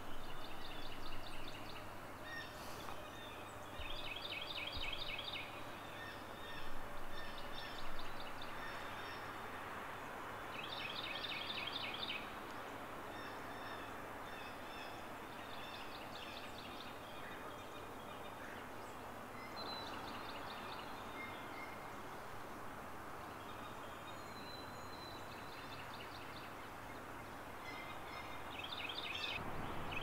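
A songbird repeatedly singing short, fast, high trills, each about a second long, every few seconds, over a steady background hiss.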